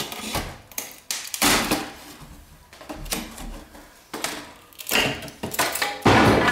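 Flat pry bar working a strip of wooden window trim loose from the jamb: a run of knocks, creaks and short cracks as the nails give, with a louder, longer crack near the end as the strip comes away.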